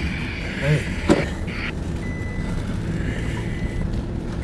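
Pickup truck cabin noise while driving: steady engine and tyre rumble, with a thin high whine coming and going and a sharp click about a second in.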